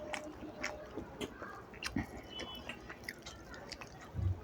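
Close-miked chewing and mouth sounds of a person eating rice and fish curry: scattered wet smacks and clicks, with a low thump near the end.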